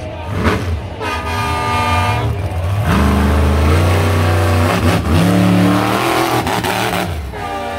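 Krazy Train monster truck engine revving hard, its pitch climbing and falling several times, with a long rising rev about a second in.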